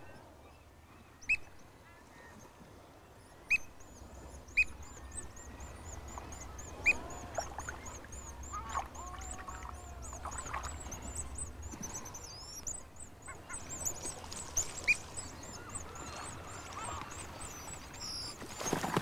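Seabird calls: a black oystercatcher gives loud, sharp single calls every second or two. From about four seconds in, a long run of rapid, very high thin whistles joins them, with some lower squawks in the middle.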